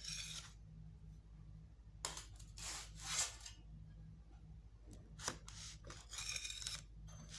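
Faint rustling and a few soft clicks from burgers and a utensil being handled on a ceramic plate, over a low steady hum.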